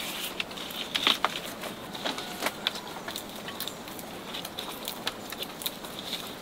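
Irregular small clicks and scrapes of wire being threaded and twisted around dry split bamboo slats, binding them into a panel.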